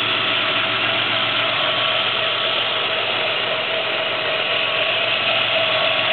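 1994 Chevrolet Cavalier Z24's 3.1 V6 running with a steady whine that sounds like a power drill. The uploader later traced the whine to an old drive belt.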